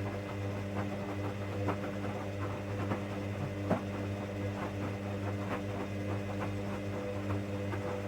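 1959 Hoover Daily washing machine running: a steady electric motor hum with irregular ticks and knocks from the machine throughout, one sharper knock about three and a half seconds in.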